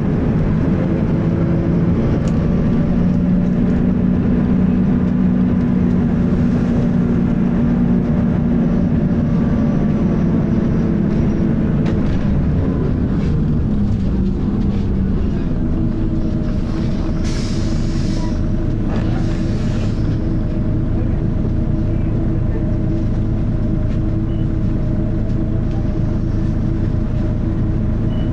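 Volvo B10BLE bus's rear-mounted six-cylinder diesel engine working hard on the move, heard from inside the saloon: a loud, steady drone whose pitch shifts as the bus changes speed, with the engine cooling fan whining. A short hiss comes about 17 seconds in.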